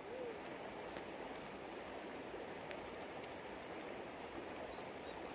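Steady rushing of river water flowing.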